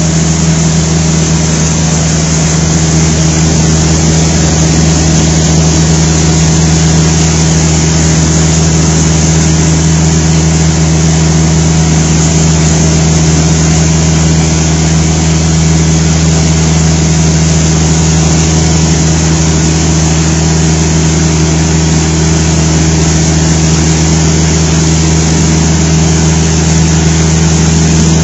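Electric carpet cleaning machine with a motor-driven brush, running steadily as it is pushed across carpet: a loud, unchanging motor hum with a rushing noise over it.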